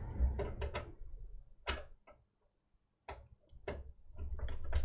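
Irregular sharp clicks and knocks with low handling rumble, a monitor cable being fitted to the onboard video port on a desktop motherboard's rear panel. The sound cuts out entirely for about a second around the middle.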